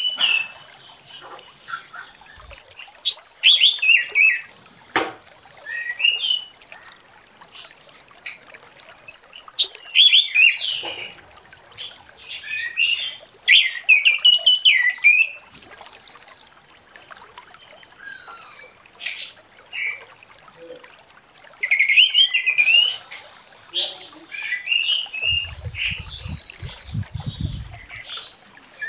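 Orange-headed thrush singing: phrases of fast, varied whistles and chirps, some sliding up or down in pitch, separated by short pauses.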